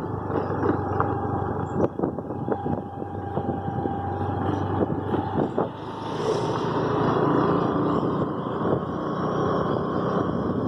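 Motor scooter riding along a rough rural road: its engine running steadily, with short knocks and rattles over the bumps in the first half and a change in the engine note about six seconds in.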